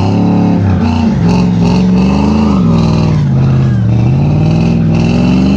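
An engine revving up and down several times, over rock music.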